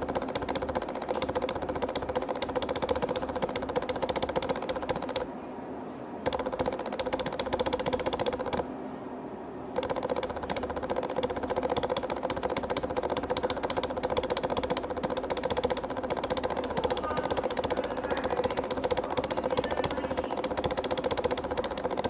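Jackhammer hammering in rapid, steady blows, pausing twice for about a second, about five and nine seconds in.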